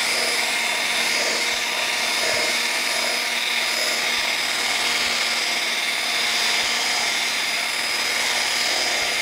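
Cordless drill-driver spinning a cloth buffing wheel against a plexiglass sheet coated with acrylic polishing paste, running at a steady speed with a constant whine.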